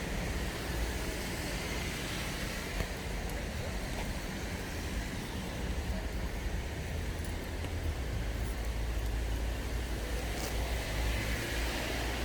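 Steady street noise: a low traffic rumble with an even hiss, no single event standing out.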